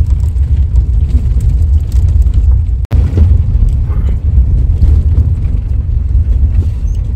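Loud, steady low rumble inside a passenger van driving on a rough unpaved mountain road, with a side window slid open. The sound drops out for an instant about three seconds in.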